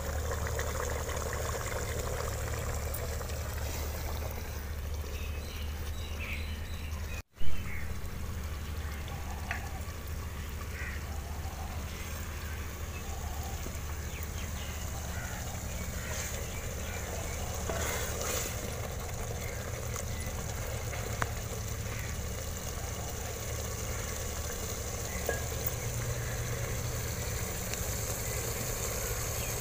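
Wooden ladle stirring and scooping thick cooked chana dal in an aluminium pot and pouring it into a bowl, with a few light knocks, over a steady low outdoor rumble. A sharp click about seven seconds in.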